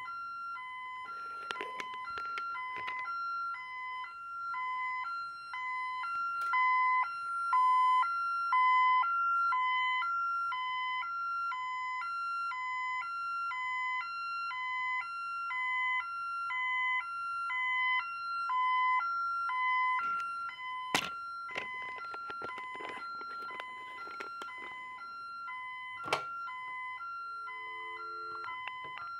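Ademco Vista-40 alarm panel's communicator sending its report down the phone line: a long run of repeated electronic beeps in several pitches, the Pulse 3+1 data and handshake tones exchanged with the central station receiver. The beeping stops about 20 seconds in, followed by clicks and handling of the telephone.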